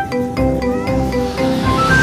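Music: a tune of short, separate notes, with a quick run of rising notes near the end.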